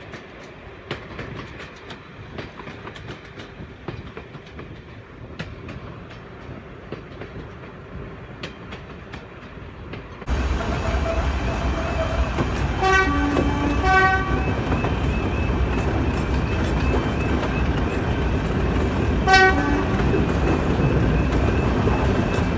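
Class 101 diesel multiple unit running along the line, its wheels clicking over rail joints. After a cut, the running noise is louder and its two-tone horn sounds: a two-note blast a little past halfway and a short blast a few seconds later, as a warning on the approach to a level crossing.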